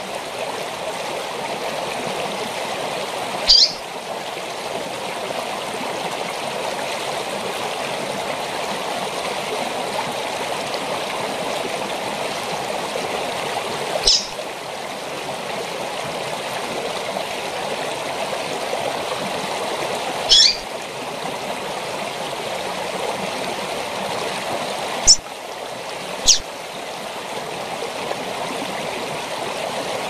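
A female double-collared seedeater (coleiro) giving five short, high call notes at irregular intervals, the last two about a second apart, over the steady rush of a waterfall.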